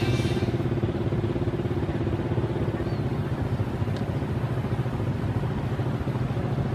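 Diesel-electric locomotive engine running with a steady low drone as the train approaches.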